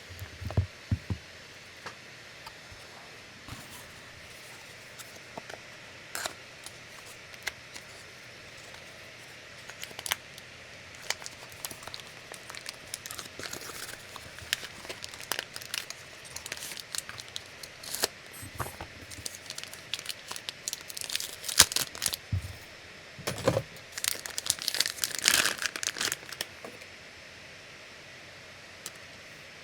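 Packaging being opened and handled: wrapping crinkling and rustling, with scattered clicks and taps. It is busiest and loudest in the second half and settles down near the end.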